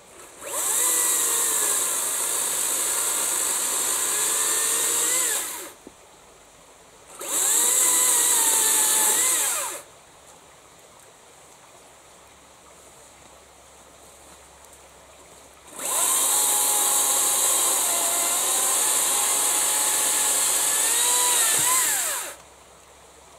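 Makita 36 V (2 × 18 V) brushless battery chainsaw cutting through a hard tea tree log. It runs in three bursts of about five, two and a half and six seconds, with pauses between them. Its electric whine sags under the load of each cut and rises again just before the trigger is released.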